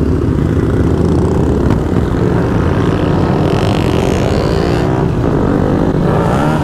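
Several motorcycle engines running together at low speed as a group of bikes rolls off, the closest the single-cylinder KTM Duke 125 carrying the camera. Steady engine drone, with a rev rising near the end.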